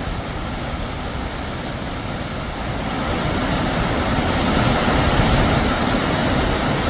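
Waterfall on a mountain creek roaring: a loud, steady rush of falling water that grows a little louder about three seconds in.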